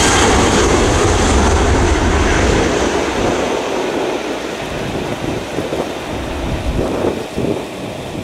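Airbus A320-232's two IAE V2500 turbofan engines at takeoff thrust during the takeoff roll and lift-off: a loud jet roar with a high whine at first, growing fainter and more rumbling as the aircraft moves away.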